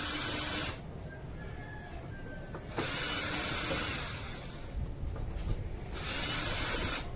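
Three bursts of high hissing from a workshop tool: a short one at the start, a longer one of nearly two seconds in the middle and another about a second long near the end.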